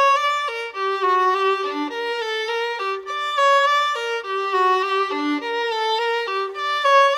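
Instrumental music: a melody of distinct notes over a lower second part, with the phrase repeating about four seconds in.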